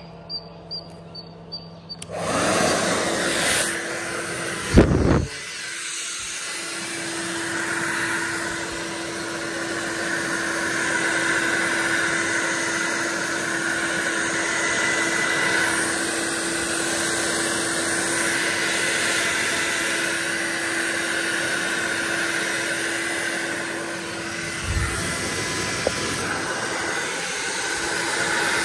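Electric hair dryer switched on about two seconds in and running steadily, blowing air with a steady motor hum through most of it. There is one sharp knock a few seconds after it starts.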